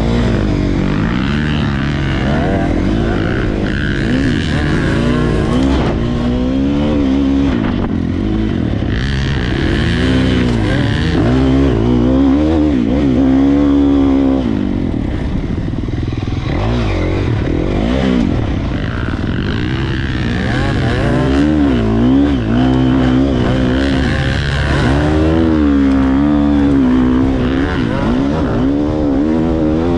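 Dirt bike engine revving hard as the bike is ridden through deep sand, its pitch climbing and dropping again and again with throttle and gear changes.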